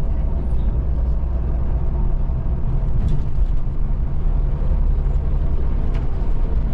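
Scania bus's diesel engine and road noise heard inside the driver's cab at highway speed: a steady low rumble.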